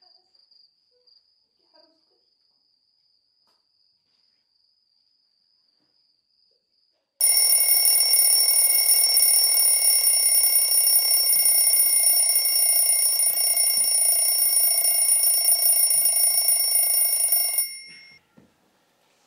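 Faint crickets chirping, then about seven seconds in a loud, steady electronic phone ringing starts abruptly. It rings for about ten seconds and stops as the phone is picked up.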